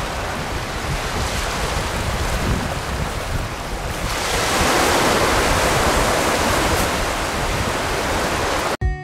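Wind buffeting the microphone over steady surf, growing louder about halfway through. Acoustic guitar music cuts in at the very end.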